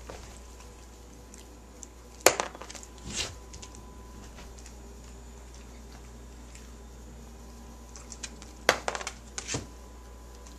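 Two clatters of a small hard plastic bottle cap knocked off a counter, each a sharp click followed by a few smaller bounces; the second comes about six seconds after the first.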